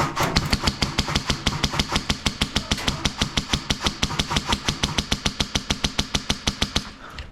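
Airsoft electric gun firing a long full-auto burst of about eight or nine shots a second, stopping abruptly near the end.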